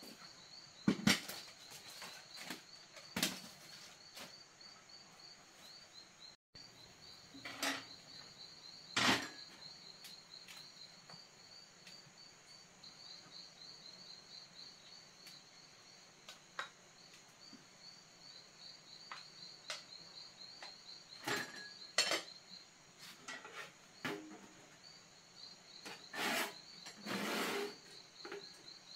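Night insects chirping in a steady, high, pulsing trill, with scattered clinks and knocks of crockery and a cooking pot as rice is served from the pot.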